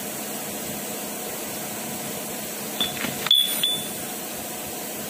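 Turned steel shafts clinking against each other a few times about three seconds in, one clink ringing briefly at a high pitch. A steady background hum runs throughout.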